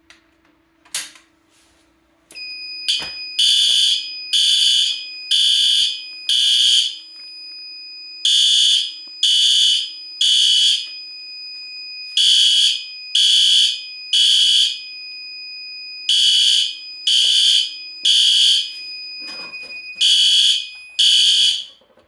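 A System Sensor P2R horn strobe on a Firelite MS-4 fire alarm panel sounds after a click from pulling a Resideo 5140MPS-1 pull station. It gives loud blasts in groups of three with a pause between each group, the temporal code-3 evacuation pattern, over a steady high tone, and cuts off partway through the last group.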